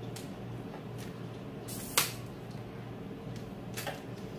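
Camera tripod being handled: one sharp click about two seconds in, with a few fainter clicks and knocks around it.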